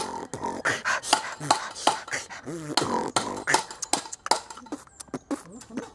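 An irregular run of sharp clicks and knocks, a few to the second, with a few short vocal sounds among them.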